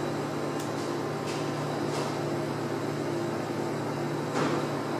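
Steady low hum of an ice-cream vending machine's freezer unit, with a few faint ticks in the first two seconds and a short knock about four and a half seconds in.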